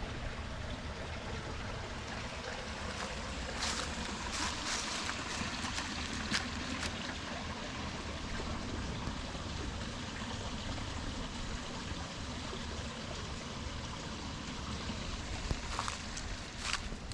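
Steady rush of running water from a small waterfall, with a few faint ticks about four to seven seconds in.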